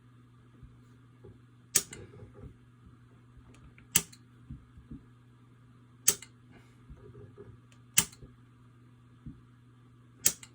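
Toggle light switch being flipped by hand: five sharp clicks about two seconds apart, over a faint steady hum. The switching is a slow, repeated reliability test of a Fibaro FGS-223 relay module's switch input, which keeps failing to change the light.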